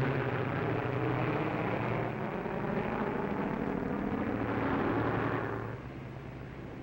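Piston engines of a four-engine propeller plane, a steady drone as it passes low over the sea. The drone drops in level a little before the end.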